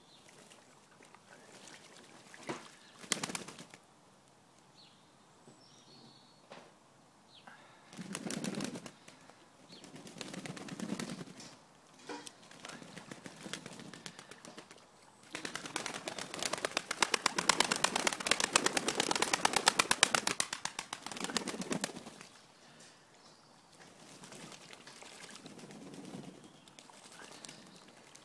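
Pigeons bathing in a shallow tray of water, flapping their wings and splashing in short bursts. The longest and loudest bout of rapid flapping runs for several seconds past the middle.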